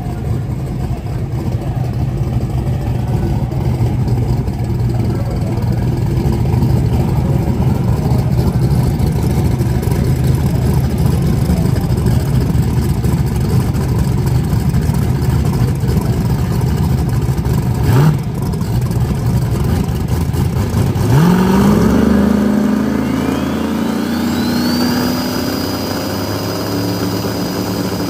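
Big-horsepower drag radial race car engines idling loud and lumpy at the starting line, with one sharp throttle blip about two-thirds of the way through. A few seconds later an engine is brought up and held at high revs while a whistle climbs and then holds steady, as the cars stage for the launch.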